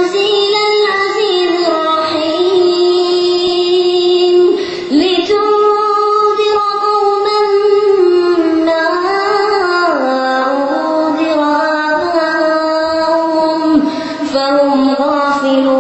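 A boy's high voice chanting Quranic recitation in melodic tajwid style. He holds long, ornamented notes and pauses briefly for breath about five seconds in and again near fourteen seconds.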